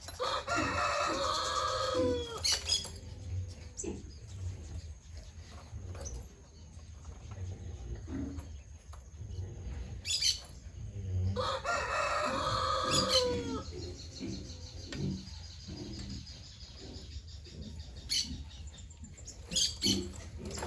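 A rooster crowing twice, about ten seconds apart; each crow lasts about two seconds and falls in pitch at the end. A few sharp knocks come in between.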